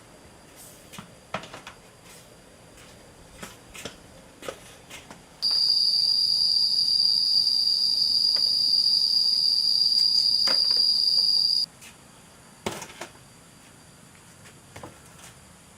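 An insect's steady high-pitched buzzing call, one even tone that starts abruptly about five seconds in and stops just as suddenly some six seconds later. Scattered light clicks and knocks sound around it.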